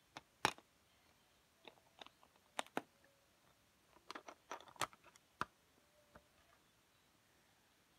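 Handling noise: scattered light clicks and taps, about a dozen, bunched between about four and five seconds in.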